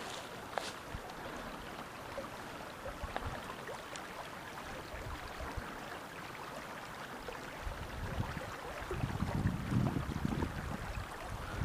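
A small, shallow stream running over riffles, a steady rush of water. From about eight seconds in, a louder low rumble joins it for a few seconds.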